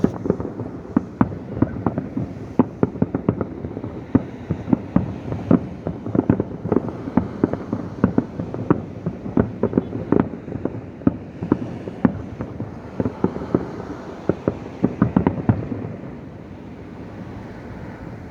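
Fireworks bursting in a rapid, irregular barrage of sharp bangs with rumbling echoes, thinning out near the end to a steady background rumble.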